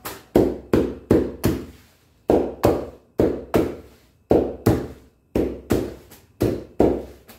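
A baked pizza being sliced with a pizza cutter: a quick series of sharp crunching knocks as the blade chops through the crust onto the base beneath, about eighteen strokes in runs of three or four with short pauses between runs.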